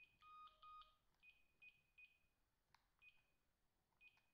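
Samsung SP-R5210pp cordless handset keypad beeps, faint: short high beeps with clicks as the buttons are pressed through the menu. Near the start, two quick louder pulses of a multi-pitched tone.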